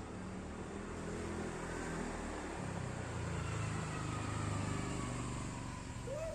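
A motor vehicle passing by: a low engine hum that grows louder to a peak about two-thirds of the way through, then eases off, its pitch drifting slowly downward.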